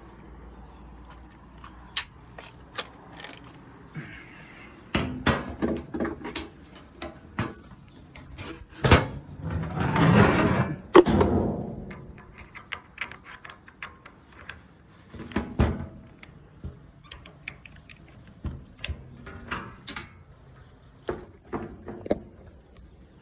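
Scattered clicks, knocks and rattles of plastic and metal parts being handled at a top-load washing machine, with a longer, louder scraping rattle about nine seconds in.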